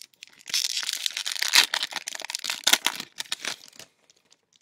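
A sports-card pack wrapper being torn open and crinkled by hand, a dense run of crackling and tearing for about three seconds.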